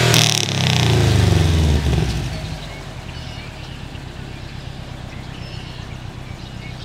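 2010 Subaru WRX's turbocharged 2.5-litre flat-four, breathing through an Invidia downpipe and SPT cat-back exhaust, let off from a held high rev: a short rush of noise as the throttle is released, the engine note falling over about two seconds, then a steady idle.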